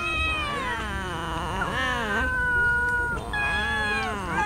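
A crowd of stray cats meowing over one another, many long drawn-out calls rising and falling in pitch at once: hungry cats begging to be fed.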